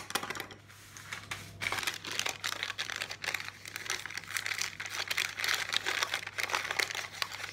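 Plastic blind-bag pouch of toy bricks being crinkled and torn open by hand: a dense, irregular crackle, with a sharp click at the very start.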